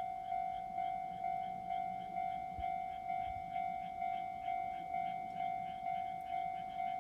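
Japanese level-crossing warning bell ringing electronically in a steady rhythm, about two strikes a second, each strike fading before the next: the crossing alarm sounding for an approaching train.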